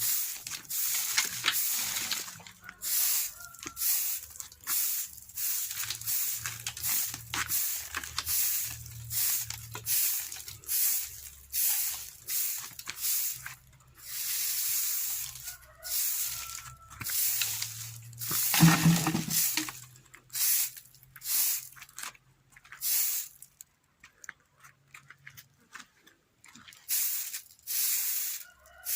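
A long run of short swishing, scraping strokes, one after another with brief pauses. About two-thirds of the way through comes a louder, deeper knock.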